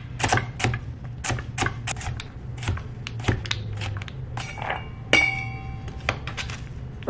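Chef's knife dicing celery and carrot on a plastic cutting board: a steady run of quick chopping strokes, about two to three a second. A short ringing tone sounds about five seconds in.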